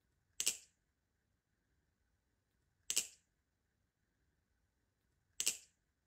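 Squid Industries Krake Raken balisong with a trainer blade clacking as its handles snap together during a repeated flipping trick: three sharp metallic clacks, evenly spaced about two and a half seconds apart.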